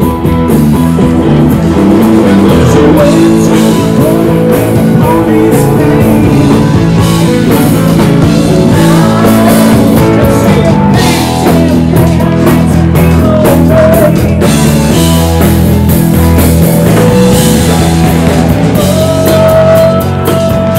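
Live rock band playing steadily: electric guitars, drum kit and a singing voice.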